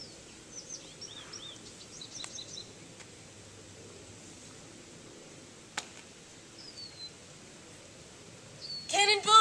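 Steady outdoor background noise with small birds chirping now and then, a single sharp click about six seconds in, and a girl's loud shout beginning near the end.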